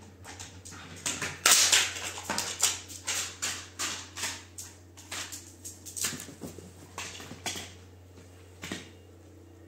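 A Labrador's claws clicking and scraping on a polished stone floor as it walks and climbs onto a sofa, with knocks from the hard plastic toy in its mouth: an uneven run of sharp clicks, a few a second, loudest about a second and a half in and thinning out near the end.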